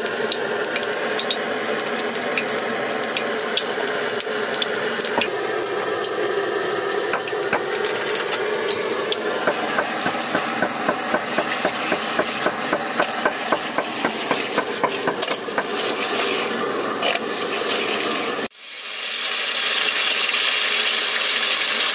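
A hand mixing pieces of fish with salt and spices in a steel bowl, with scattered ticks and then a run of regular short scrapes against the metal. About eighteen seconds in it cuts to fish frying in hot oil in an iron wok, sizzling loudly and steadily.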